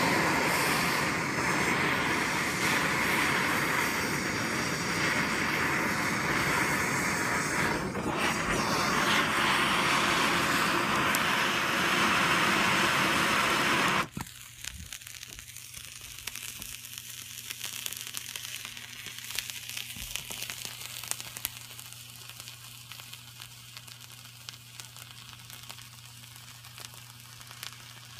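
Handheld gas torch hissing steadily as it heats a small cup of aluminum powder mixed with sulfur, cutting off suddenly about fourteen seconds in. After that, quieter crackling and fizzing of the aluminum–sulfur mixture burning.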